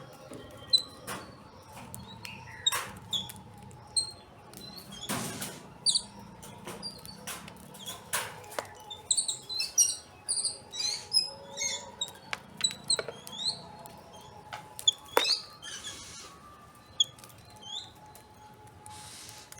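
Birds chirping: many short, high chirps and tweets at irregular intervals, with scattered sharp clicks and a few brief rushes of noise.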